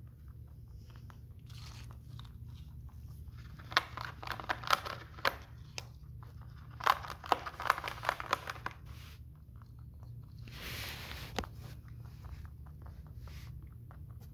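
Rabbits gnawing on chew toys: two bouts of crisp crunches and bites, one about four seconds in and one about seven seconds in, then a softer rustle near eleven seconds, over a low steady hum.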